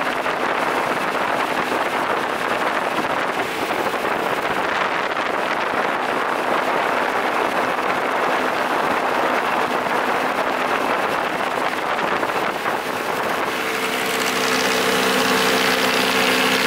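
Motorboat under way: its engine runs steadily beneath a loud rush of wind and water. About thirteen seconds in, the engine note comes through more clearly and a little louder.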